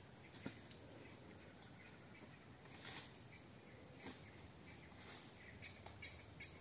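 Insects in forest undergrowth keeping up a faint, steady high-pitched drone, with a few faint brief sounds over it.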